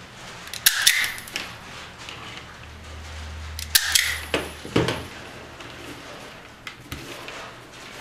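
Wire cutters snipping through insulated wire twice: a sharp snip about a second in and another about four seconds in, followed by a couple of lighter clicks as the wire is handled.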